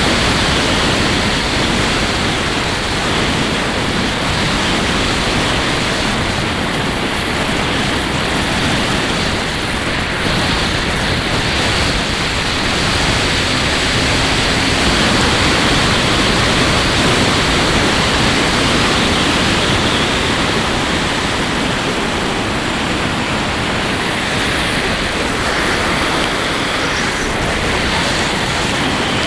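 Steady, loud rush of wind over the microphone of a camera riding on a Skywalker RC plane as it dives, a even hiss with no clear motor tone.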